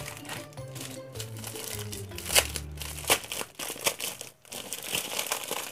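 Plastic bubble mailer crinkling and rustling as hands open it, with a couple of sharp crinkles about halfway through. Soft background music plays underneath.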